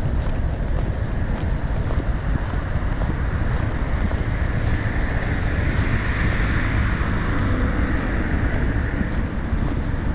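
Wind buffeting backpack-mounted lavalier microphones outdoors, a steady low rumble. A hissing sound swells and fades in the middle.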